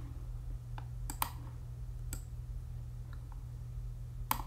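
Computer mouse clicks: a few separate clicks in the first two seconds and a quick double click near the end, over a steady low hum.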